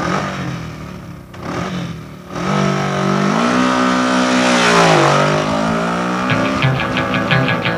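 Motorcycle engine revving as the song's opening sound effect: its pitch climbs, holds, dips and climbs again. About six seconds in, the band's rhythm starts up under it.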